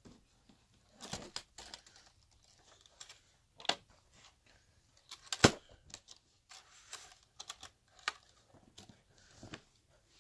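Scattered clicks, taps and light rustling of things being handled and fumbled with, the loudest a sharp knock about five and a half seconds in.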